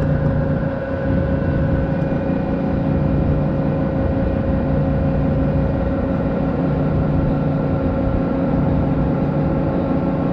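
Steady mechanical hum of a cable ferry's engines and cable drive under way, a low drone with a higher steady tone above it.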